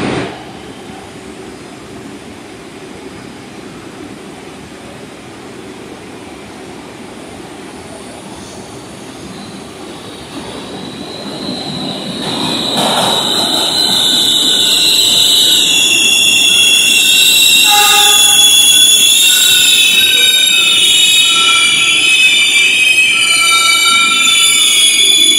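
A steady low station rumble, then from about halfway through an R62A subway train pulling in, its wheels squealing loudly in several high tones that shift in pitch.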